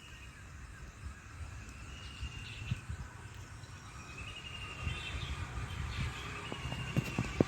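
Outdoor ambience: a small animal's high trilling call repeating several times, each trill lasting a second or two and falling slightly in pitch, over a low wind-like rumble, with a few sharp knocks near the end.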